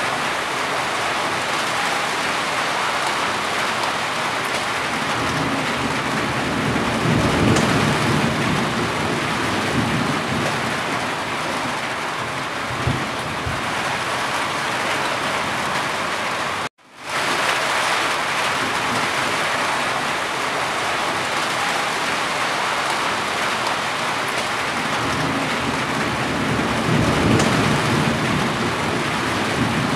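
Steady heavy rain falling on a roof, with low rumbles of distant thunder rising twice, about a quarter of the way in and near the end. The sound cuts out completely for a split second just past halfway.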